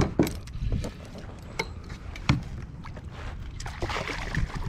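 Sharp knocks of gear against a plastic fishing kayak's hull while a bass is played beside the boat, then splashing near the end as a landing net is dipped under the fish.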